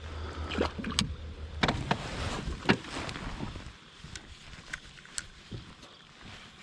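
A small bass tossed back into the river hits the water, followed by a cluster of knocks, clicks and water sounds around a plastic fishing kayak. The sounds thin out to a few faint ticks after about three and a half seconds.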